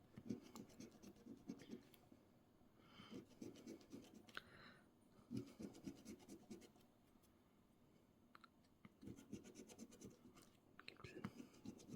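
A coin scraping the coating off an instant scratch-card lottery ticket, faint, in several short bouts of rapid strokes with brief pauses between.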